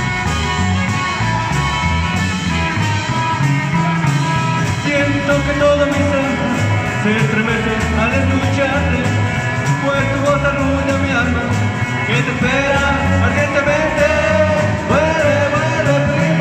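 A live band playing an upbeat oldies song on drum kit, electric bass and electric guitar, with a melody line that slides between notes over a steady beat.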